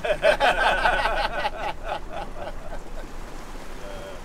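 A young child's high-pitched giggling for about two seconds, fading out into a steady background hiss.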